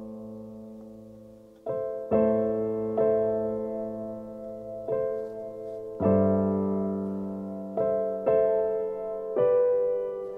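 Background piano music: slow chords struck every second or two, each left to ring and fade before the next.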